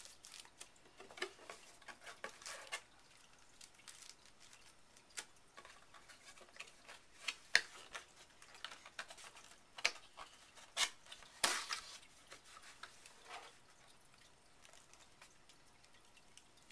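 Packaging rustling and small clicks and taps as camcorder accessories are handled and lifted out of their box, busiest in the middle and quieter near the end.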